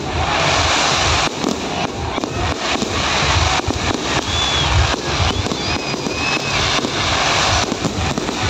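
Fireworks display: aerial shells bursting with repeated low booms over a dense, continuous crackle and hiss from crackling stars and ground fountains.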